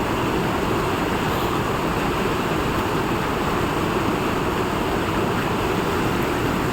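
Rushing water: a steady, even noise with no breaks.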